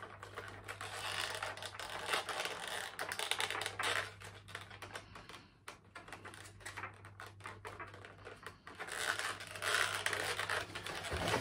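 Irregular clicks, taps and scrapes of a model locomotive being packed back into its clear plastic case and box, busiest about a second in and again near the end, over a steady low hum.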